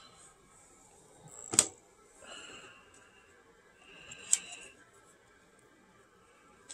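Plastic card sleeves and toploaders handled in a stack: two sharp plastic clicks, one about a second and a half in and another about three seconds later, with soft rustling and sliding between.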